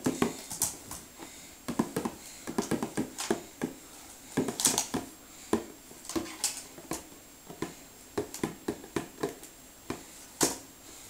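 Plastic pen tapping and scratching on a toy drawing board, with knocks of the plastic board being handled: irregular small taps and clicks with a few brief scratchy strokes.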